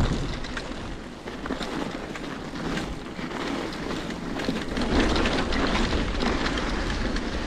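Wind buffeting the microphone over a bicycle rolling along a trail, with steady low rumble and many small ticks and rattles.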